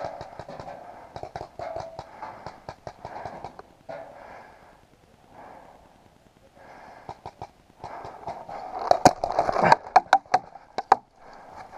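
Heavy breathing in and out, about a breath a second, with small clicks and rustles of movement. Several sharp cracks come in quick succession between about nine and eleven seconds in.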